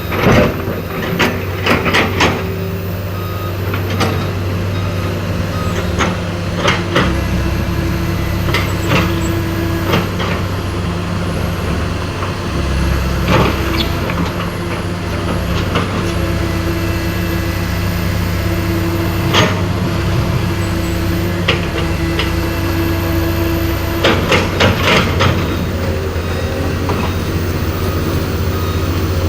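Heavy diesel machinery and trucks running steadily at a roadwork site, with scattered sharp clanks and knocks, clustered near the start and again near the end.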